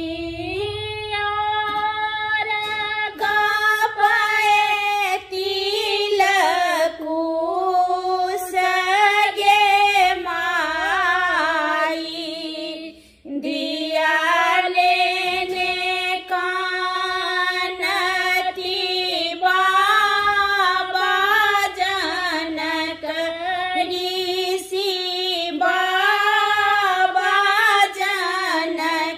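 Two women singing a Maithili wedding folk song together, unaccompanied, with a short break for breath about halfway through.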